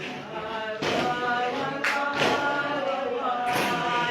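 A congregation singing a Revival Zion chant together in sustained, held notes, cut by a few sharp percussive strikes.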